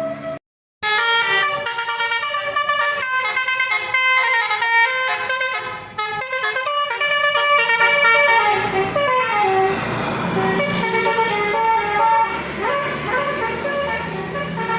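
Basuri multi-tone musical vehicle horn (telolet horn) playing a fast run of changing notes, then sliding down and back up in pitch in the second half, after a brief cutout just after the start.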